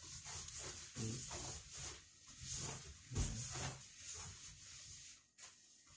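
Steady hiss with soft knocks and rustles of a phone being handled, and a louder low thump about three seconds in. Everything cuts off abruptly at the end.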